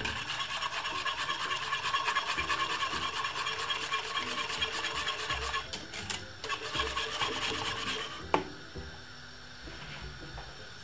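Wire balloon whisk beating a thin milky porridge in an aluminium saucepan, its wires scraping rapidly against the pan for about eight seconds with a brief pause a little past the middle. A single sharp clink sounds near the end.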